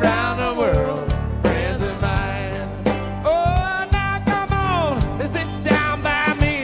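Country-style song with a singing voice, guitar, bass and a steady drum beat.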